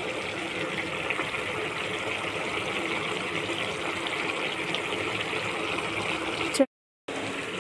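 Flat-bean (chikkudukaaya) curry simmering in a pan, a steady bubbling hiss: the curry is cooked through and is in its finishing stage, with coriander just stirred in. The sound drops out for about half a second near the end.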